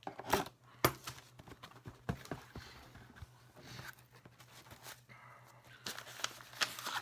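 A cardboard shoebox being handled and opened by hand: scattered light knocks, taps and rustles of cardboard and paper, with a cluster of clicks near the end.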